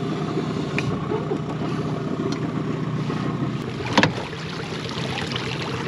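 Small boat's outboard motor running steadily at low speed, a continuous even hum. A single sharp knock about four seconds in.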